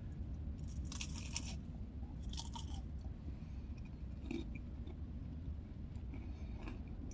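Close-up eating of crackers and summer sausage: a few crisp cracker crunches, strongest about a second in and again at about two and a half seconds, then softer chewing.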